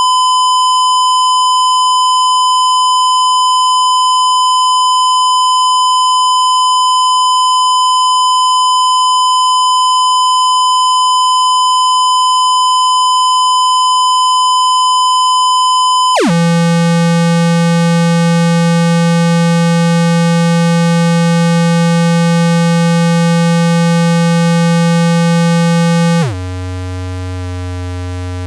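Synthesized hearing-test tones. A steady, loud electronic tone holds for about sixteen seconds, then cuts abruptly to a low, buzzy tone. Near the end it drops to an even lower, quieter hum.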